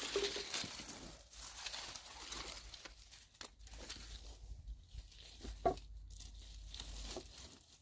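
Rustling and crackling of leafy branches and twigs being handled at a smoky campfire, with scattered small snaps and one sharper snap a little past the middle.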